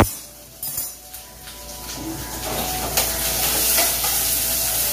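Onions sizzling in hot oil in a steel frying pan on a gas burner, stirred with a spatula. A sharp knock right at the start and a short lull, then the sizzle builds and holds steady.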